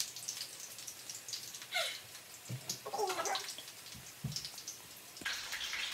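Perkedel (potato fritters) frying in oil in a pan, a faint steady sizzle that gets louder about five seconds in. A few brief faint vocal sounds and light knocks come in the middle.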